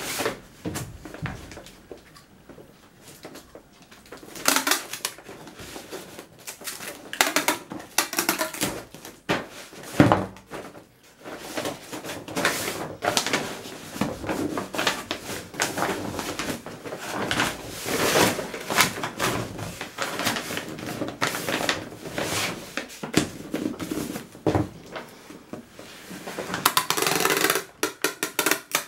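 Brown kraft paper crinkling and rustling in irregular bursts as it is folded and pressed around a cardboard box. Near the end comes a rapid crackling run as packing tape is pulled off a tape-gun dispenser onto the paper.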